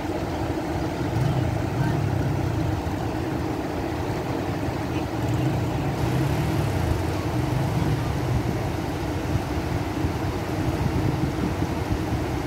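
A motor vehicle engine running steadily over the continuous rush of floodwater pouring across a road.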